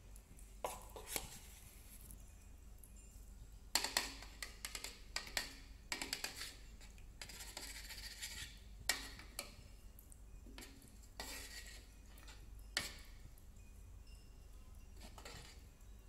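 Metal spoon stirring a thin sauce in a wok, clinking and scraping against the pan in irregular strokes, busiest from about four to seven seconds in.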